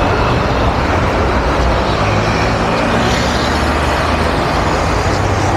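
Steady city street traffic: motor vehicles running along a busy avenue, with a low engine hum underneath.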